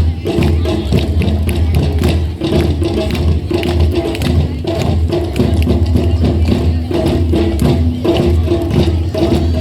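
A group of school drummers playing together: a dense, driving run of drum strokes over a steady low boom, with no pause.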